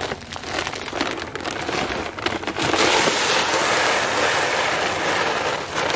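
Whole corn kernels pouring from a feed bag into a 30-gallon plastic tote: a rattling patter of kernels that swells, about three seconds in, into a steady rushing pour.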